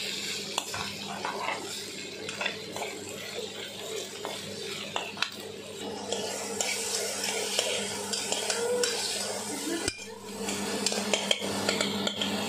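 Metal spoon stirring vegetables frying in oil, scraping and clinking against the pan and then an aluminium pressure cooker, over a steady sizzle. There is a brief break about ten seconds in.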